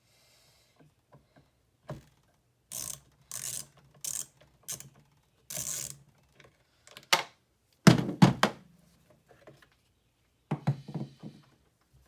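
Hands working on a leaf blower during a repair: a series of short scraping and rustling strokes, then a cluster of heavy plastic knocks and thunks about eight seconds in, and more knocks near the end.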